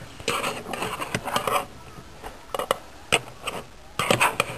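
A utensil stirring and scraping through cubed pork in a baking pan for about a second and a half, then a few sharp clinks and knocks against the pan.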